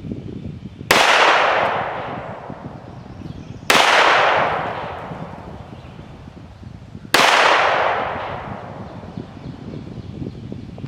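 Three single handgun shots, a few seconds apart, each ringing out and fading over about two seconds. The slow, evenly spaced fire is trigger-isolation practice at a target.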